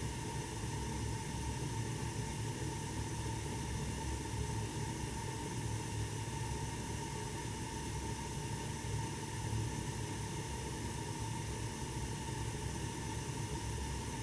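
1988 Snyder General gas furnace running: a steady low hum with an even hiss and a faint high tone.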